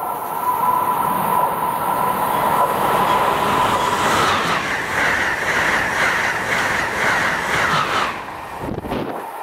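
Amtrak Acela Express high-speed electric trainset passing at speed. A steady high tone comes with its approach, then a loud rush with rhythmic wheel clatter as the cars go by. The rush drops off sharply about eight seconds in as the last car clears.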